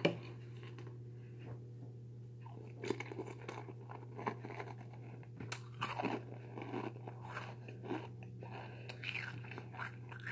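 Someone chewing a mouthful of crunchy breakfast cereal, with irregular crisp crunches, over a steady low hum.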